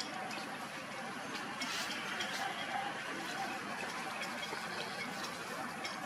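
Steady, even noisy background with a few faint light clicks.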